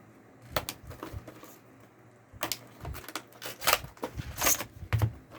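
Trading cards being handled and flipped through: a scattered series of short snaps and rustles, the loudest a little past the middle.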